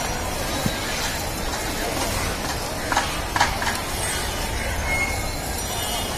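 Cows feeding from a woven basket of straw, with a few short crackles and rustles of straw about three seconds in. A steady low rumbling background noise runs underneath.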